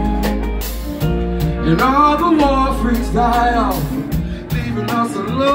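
A live funk and soul band is playing, with drums, bass and electric guitar. Over them a male lead voice holds long notes that bend up and down.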